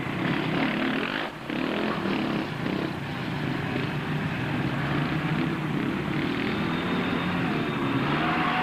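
Small quad (ATV) engines running and revving on sand, with a brief drop in level just over a second in.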